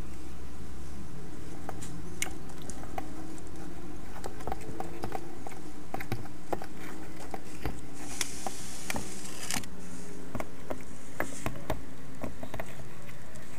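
Pond slider turtles' claws clicking and scratching on the hard plastic and tiles of a dry tank as they crawl: irregular light clicks, with a longer scraping rustle about eight seconds in.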